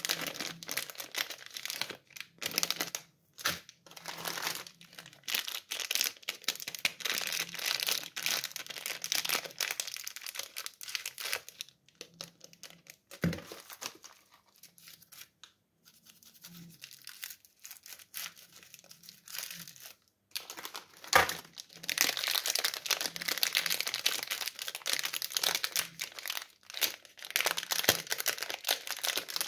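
Plastic candy wrappers crinkling and tearing as they are handled and opened, a dense crackling that thins out for several seconds in the middle, where a couple of short taps stand out.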